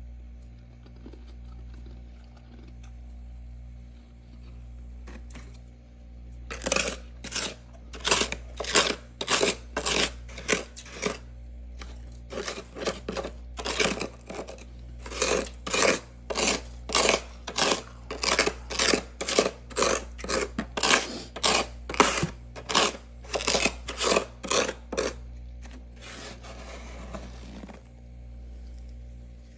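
A plastic scoop scraping thick frost off a freezer's inner wall in quick strokes, about two a second, starting several seconds in and stopping a few seconds before the end, over a steady low hum.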